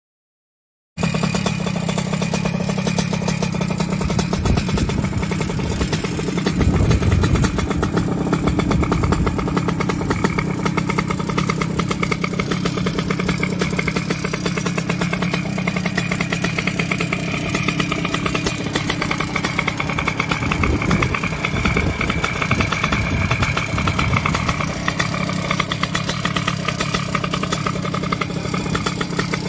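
Puch moped's two-stroke engine with a 70cc TRD cylinder and Stage6 exhaust, running steadily on the stand. The sound cuts in about a second in and gets briefly louder about seven seconds in.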